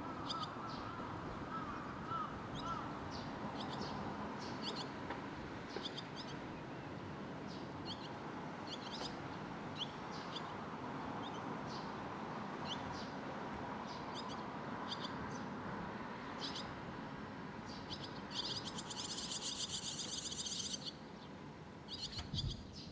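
Fledgling barn swallows calling while waiting to be fed, with short, high chirps about once a second. Near the end comes a dense burst of rapid chattering notes lasting a couple of seconds. A steady low background hum runs underneath.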